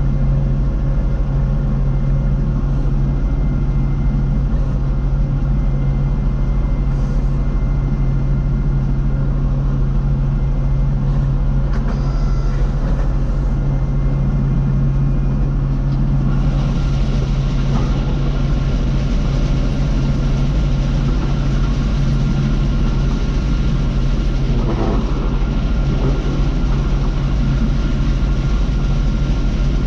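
Bizon Z058 Rekord combine harvester running steadily under load, its diesel engine and threshing machinery droning together. A higher hiss grows louder about halfway through.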